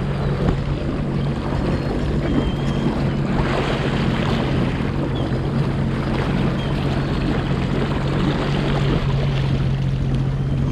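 2021 Sea-Doo FishPro jet ski under way, its three-cylinder four-stroke engine running at a steady pitch beneath the rushing, splashing water of the jet wake churning behind the stern.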